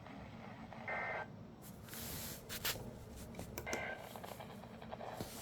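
Weather-radio alert data signal: two short warbling digital chirps, one about a second in and one near four seconds. Radio hiss and crackling static lie under them.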